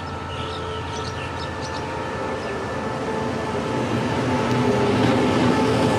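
SRT QSY-class diesel-electric locomotive running slowly past at close range, its engine giving a steady drone that grows louder as it draws level.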